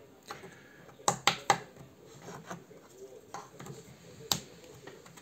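Small hard objects being handled on a bench: a quick run of three sharp clicks about a second in, then a few scattered clicks and taps.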